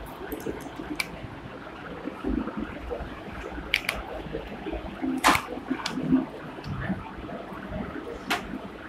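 Marker writing on a whiteboard: faint scratching strokes with a few short, sharp taps, over a steady room hiss.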